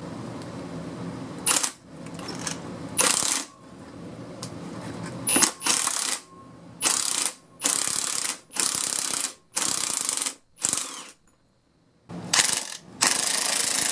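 Milwaukee M18 Fuel 2763-20 cordless impact wrench hammering in short bursts, about ten of them, with a longer run starting near the end, as it drives the forcing screw of a two-jaw puller to pull a tack-welded wheel bearing race off the hub.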